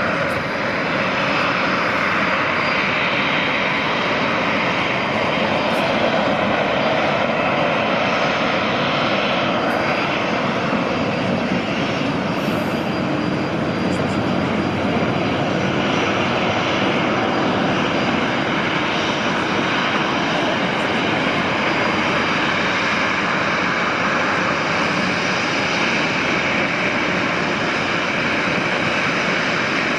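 Jet engines of a taxiing Boeing 737-800, its CFM56-7B turbofans running at taxi power. They make a steady, even rushing hum that holds unchanged throughout.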